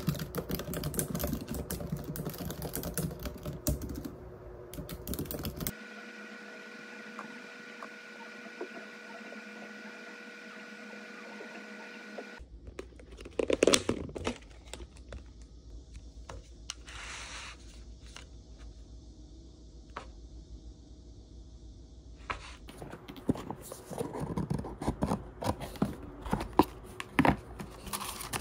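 Fingers typing on a laptop keyboard, a run of quick clicks. Then a quiet stretch of steady faint hum, followed by a plastic takeaway container lid being handled with one louder knock. Near the end comes tissue paper rustling and crinkling as a gift box is unwrapped.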